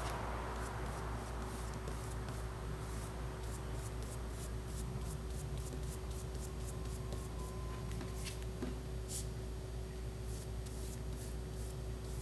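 A paintbrush scrubbing watered-down gouache on a palette and then stroking it across paper, giving faint light scratchy brushing sounds over a steady low electrical hum.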